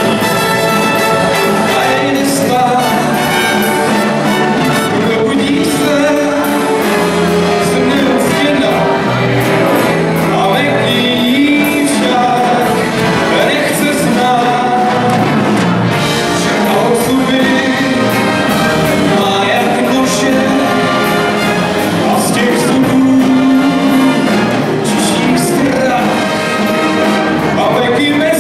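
Big band playing live: trumpets, trombones and saxophones over drums, guitar and keyboard, with a singer at the front microphone.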